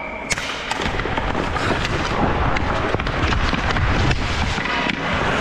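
Hockey skate blades scraping and carving on the ice, with repeated sharp clacks of sticks on the ice and puck, the loudest about a third of a second in as the faceoff is taken.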